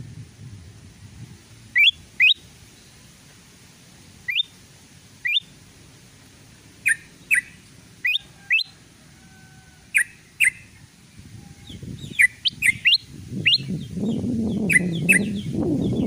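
Bulbul lure recording of yellow-vented bulbul and kutilang emas calls: short, sharp rising chirps, mostly in pairs a fraction of a second apart, coming faster in the last third. Under them a low rushing noise swells over the last few seconds.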